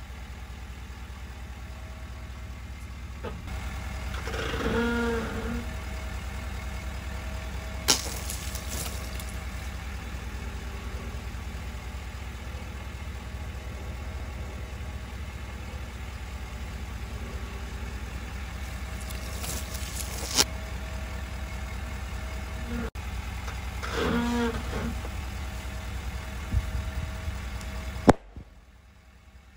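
Ford F-350 Super Duty pickup's engine idling steadily as its tyre crushes plastic objects on concrete, with two sharp pops about 8 and 20 seconds in. Twice a short squeal rises out of the rumble, and a last sharp click comes near the end.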